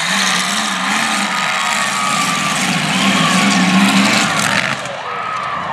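Several demolition derby cars' engines running and revving in and out as the cars manoeuvre, their pitch rising and falling.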